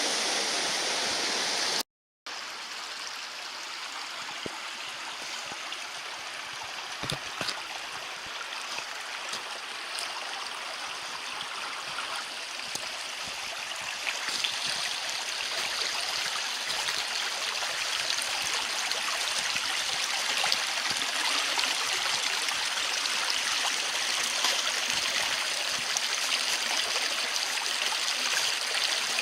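Running water from a snowmelt stream or waterfall: a steady rushing that grows a little louder from about halfway through. It cuts out for a moment about two seconds in.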